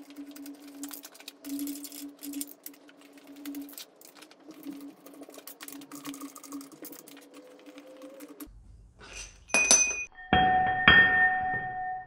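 Soft, irregular metal clicking over a faint steady hum. From about eight and a half seconds in come a few sharp metal-on-metal clinks, each ringing briefly, as steel tools or bolts strike the engine; one rings on for over a second.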